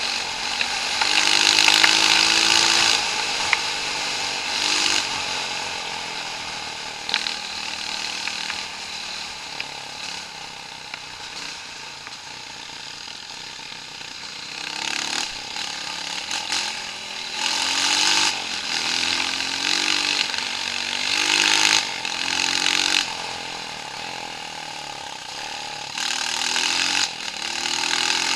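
Off-road vehicle engine revved hard in repeated bursts, its pitch rising and falling with each throttle blip. The loudest burst comes about a second in, and the revving eases off in the middle before picking up again in several bursts.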